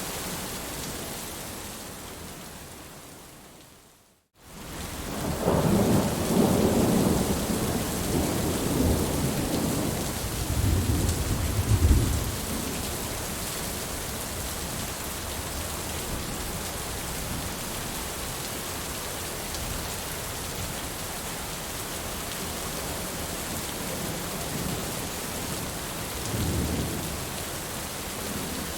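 Heavy rain that fades out to a moment of silence about four seconds in, then returns with a long roll of thunder, loudest about twelve seconds in. Steady rain follows, with a fainter rumble of thunder near the end.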